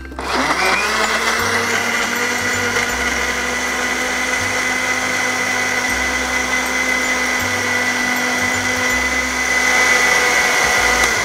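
Countertop electric blender running, blending ice cubes, passion fruit and mint leaves into a drink. The motor whine rises in pitch over the first second as it spins up, then runs steadily.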